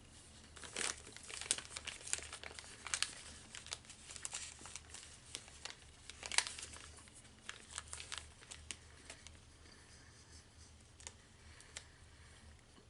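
Plastic snack wrapper crinkling and crackling as it is handled, a run of sharp crackles that thins out after about nine seconds.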